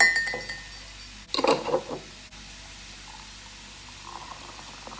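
Metal tea infuser clinking against a glass mug, followed by a second clatter about a second and a half in. Near the end, hot water is poured from a kettle into the glass mug, faintly.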